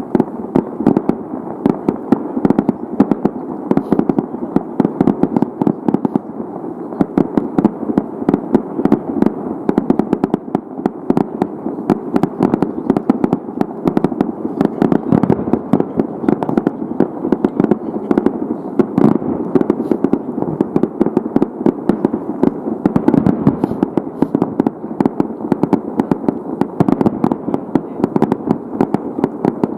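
Fireworks bursting in a dense, continuous barrage of bangs and crackle, many reports a second with no break.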